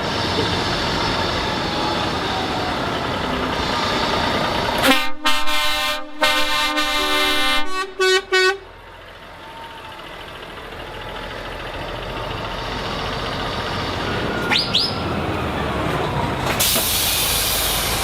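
Truck engines running, then a truck's air horn blasting several times for about three seconds, a second pitch joining near the end of the blasts, before it cuts off suddenly. A loud hiss comes near the end.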